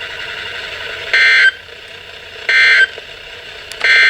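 Weather radio EAS end-of-message SAME data bursts: three short, shrill digital warbles about 1.4 s apart, marking the close of the warning broadcast, over steady radio hiss.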